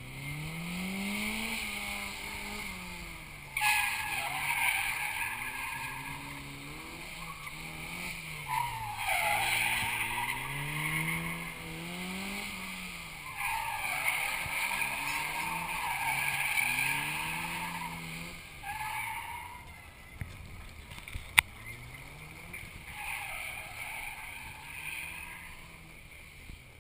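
Drift car's engine revving up and falling back again and again, with about five stretches of tyre squeal a few seconds each. A single sharp click comes about four-fifths of the way through.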